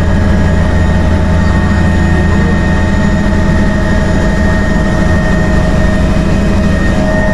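Helicopter in flight heard from inside the cabin: a loud, steady drone of rotor and engine with a thin steady whine above it.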